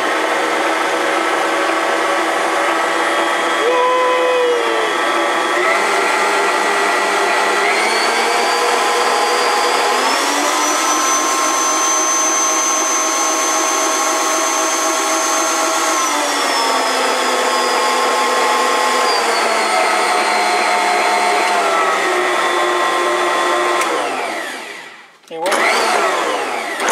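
An 800-watt Bosch Universal Plus mixer motor running empty with its dough hook turning: a steady whine. The pitch steps up about eight and ten seconds in, then steps back down in stages. It winds down and stops just before the end, then starts up again.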